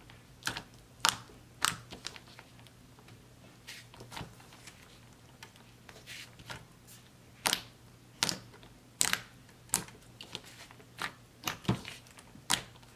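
Soft, creamy white slime being pressed, poked and stretched by hand, giving off irregular crisp clicks and pops, the sizzly crackle of the slime. The pops come thicker and louder in the second half.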